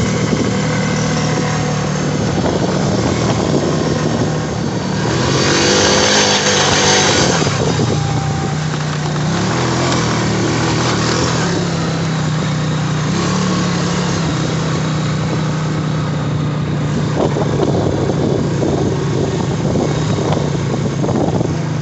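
Honda ATV's single-cylinder four-stroke engine running steadily under way, with a louder surge about five to seven seconds in where the engine note rises and falls.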